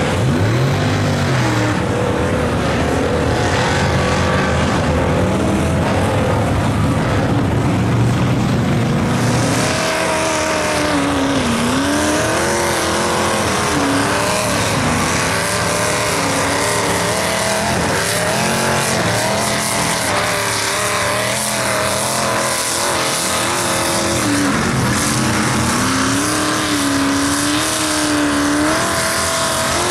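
Chevy mud truck engines revving hard as the trucks churn through deep mud, the pitch rising and falling constantly with the throttle. The sound changes abruptly about ten seconds in, when a different truck's engine takes over.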